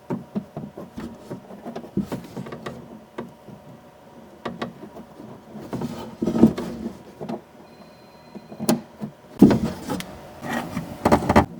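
Hands working a car door's lock rod and its plastic retaining clip inside the door: scattered small clicks, taps and rubbing, with a few louder knocks near the end, the loudest about nine and a half seconds in.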